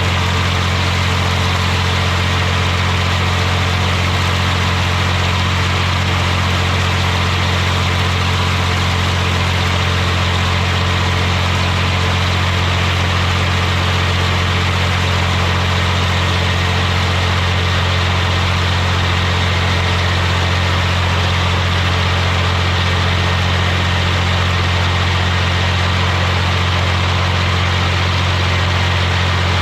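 Tractor engine running at a steady speed, its note unchanging throughout.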